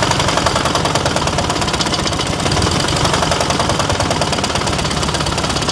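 KMZ engine running steadily with a fast, even pulse and no change in speed.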